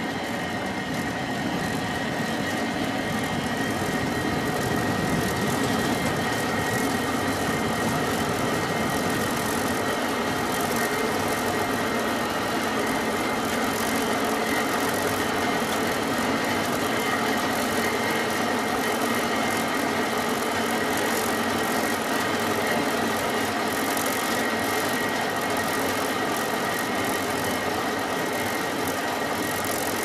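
Cable car running during a ride: a steady mechanical running noise with a constant high whine over it, unchanging throughout.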